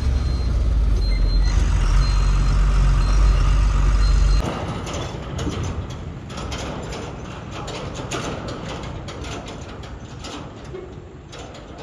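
Lorry's diesel engine running loudly, with a short high beep repeating about twice a second. About four seconds in the sound cuts to a quieter stretch of rattling and clicking.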